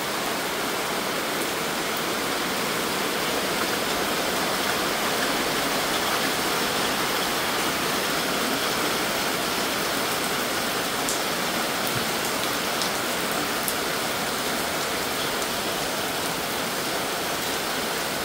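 Heavy rain falling steadily, a constant even hiss of downpour on wet ground, leaves and roofs.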